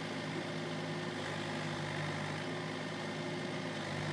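Case mini excavator's diesel engine running steadily while the boom and bucket dig into the dirt.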